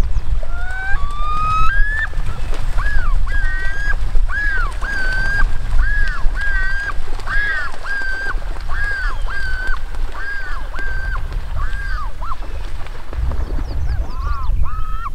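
Common loon yodelling, the male's territorial call: a few rising wails, then a long run of repeated arching two-note phrases about twice a second. The calls pause briefly near the end, then start again. A steady low rumble runs underneath.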